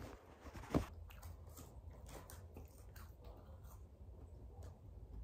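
Faint eating sounds: chewing and crunching of fast food, with small clicks and rustles of paper takeaway packaging and one soft knock about a second in.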